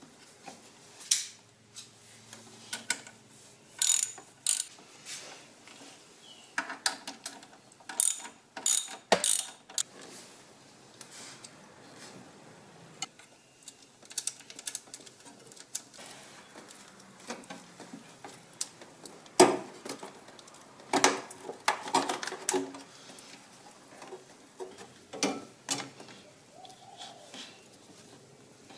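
Hand tools working on metal: a ratchet wrench clicking and tools clinking and knocking in short, irregular bursts as bolts are refitted.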